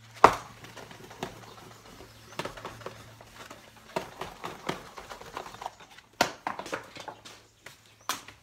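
Clunks, knocks and clicks of metal parts and hand tools being handled on a workbench, the loudest a single hard knock right at the start and more clustered in the middle, over a steady low hum.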